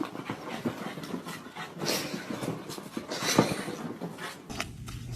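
A dog breathing noisily in irregular, panting-like bursts, among scattered clicks and knocks. A low steady hum starts near the end.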